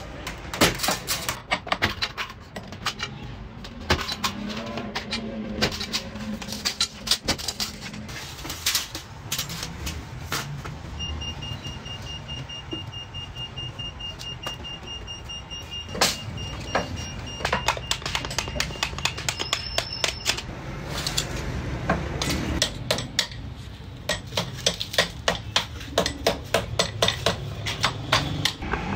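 Irregular metallic clinks and knocks of steel sheet and strips being cut on a hand lever shear and handled, over a low workshop hum. A steady high tone sounds for about ten seconds in the middle.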